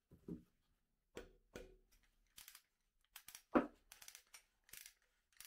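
Restored ratchet wrench clicking in short bursts as its handle is swung back and forth against the pawl, with a louder knock about three and a half seconds in.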